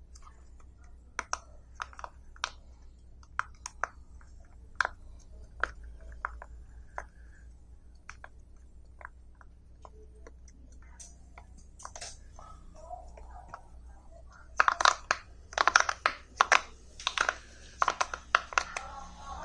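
Silicone pop-it fidget toy bubbles being pushed through by fingers, each giving a short sharp pop. Single pops come about a second apart at first, then a quick run of louder pops near the end.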